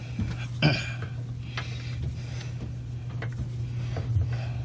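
Cotton wick packing being wound by hand around a brass gate valve stem: small scratches and clicks of string and fingers on the valve, with one sharper click a little under a second in. A steady low hum runs underneath.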